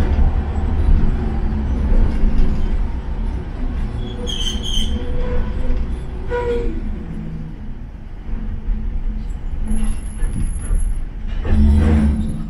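Hiroshima Electric Railway 700-series tram running on street track, heard from inside the car: a steady low rumble of motors and wheels, with a brief high wheel squeal about four seconds in and a louder surge of rumble near the end.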